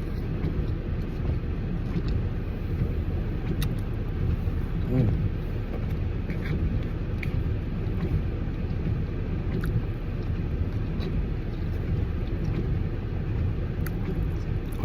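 Steady low rumble inside a car, as from the engine idling, with a few faint clicks and a brief murmur about five seconds in.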